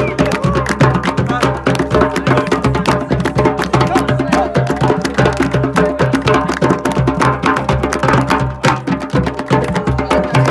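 Music with fast, steady hand percussion and a wavering melody over held tones.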